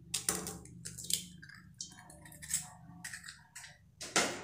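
Eggs being cracked and opened into a stainless steel bowl: a few light taps and cracks of shell, with a louder knock a little before the end.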